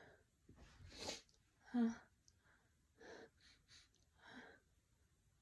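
A woman's quick, breathy inhales and sniffs as a sneeze builds after a dose of chhinkni sneezing powder, with one short, louder voiced catch of breath just under two seconds in, then several softer breaths.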